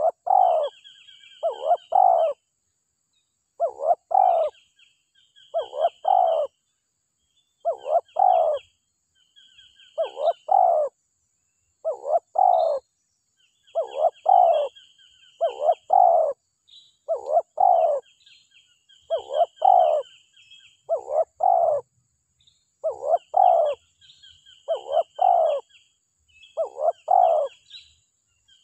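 Spotted dove cooing over and over, in short groups of two or three coos about every two seconds, with higher chirps from another bird between them.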